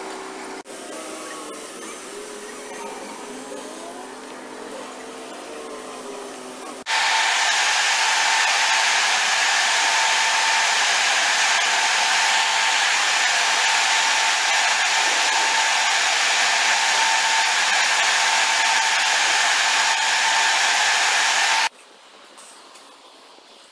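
Large axial fans of a corn dryer running: a loud, steady rushing of air with a steady whine through it, which starts abruptly about seven seconds in and cuts off sharply near the end. The first seven seconds hold a quieter, uneven background sound.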